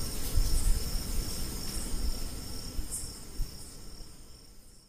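Background noise picked up by the recording microphone: two steady high-pitched tones over a low rumble, with no speech, fading out toward the end.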